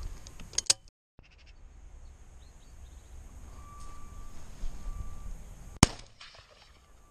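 A single shotgun shot about six seconds in: one sharp, very loud report that dies away quickly.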